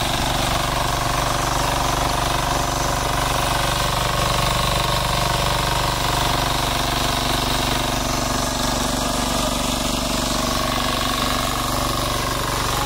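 Single-cylinder four-stroke diesel engine (KAMA) of a power weeder running steadily under load while its tines till the soil.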